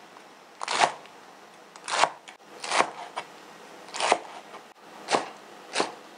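Chef's knife slicing stacked Chinese kale leaves into strips on a wooden cutting board, the blade striking the board about six times, roughly once a second.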